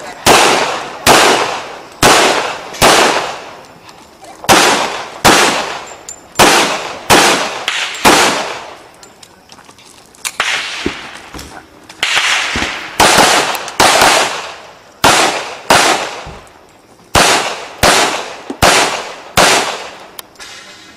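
Handgun shots fired one after another, about one a second, each sharp report trailing off in a short echo, with a brief break about halfway through.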